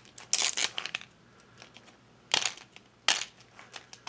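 Plastic wrapping crinkling and a hard plastic Mini Brands capsule ball clicking and crackling as it is worked at by hand to get it open. The sounds come in short, sharp bursts: a cluster in the first second, then two louder ones a little past halfway.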